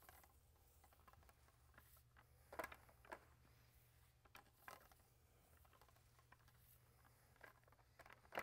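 Near silence: a low steady room hum with a few faint, short taps and clicks.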